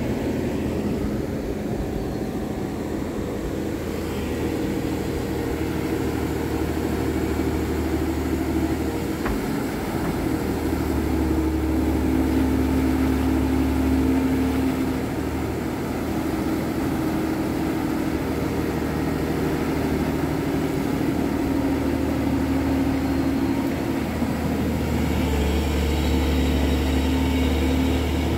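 Excavator's diesel engine running steadily, its pitch shifting now and then, over water rushing through a breach in a beaver dam.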